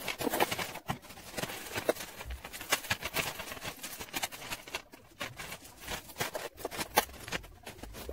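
Clear plastic bags rustling and crinkling, with costume jewellery (necklaces, bangles, bracelets) clinking and rattling as pieces are sorted into the bags: a busy, irregular run of clicks and rustles.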